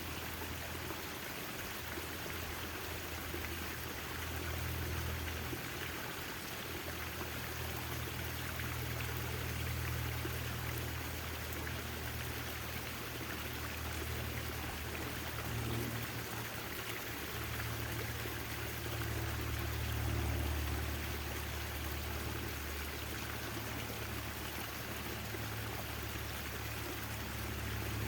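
Backyard fountain water splashing and trickling steadily, with a low rumble underneath that swells and fades every few seconds.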